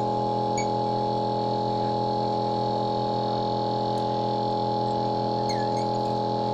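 Steady electrical hum with several constant tones from an LCD separator machine running, as it heats a phone display to soften the glue, with a few faint ticks.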